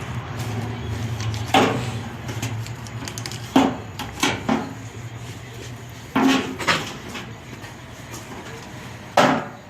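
Sheet-metal duct fitting being handled, giving about seven sharp clanks and knocks spread through, over a steady low hum that weakens after the first few seconds.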